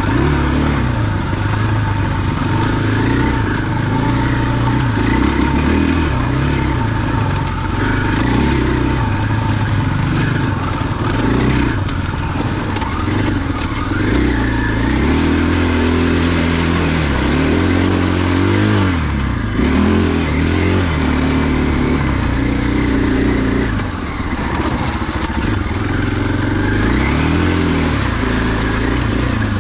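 2021 KTM 500 EXC-F's single-cylinder four-stroke engine, heard close up from on the bike, revving up and down over and over as the throttle is worked, its pitch rising and falling every second or two.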